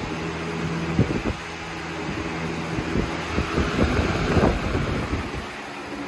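Lasko 3733 box fan running: a steady motor hum under the rush of air. From about three seconds in, the airflow buffets the microphone in uneven thumps that grow louder for a second or so and then ease.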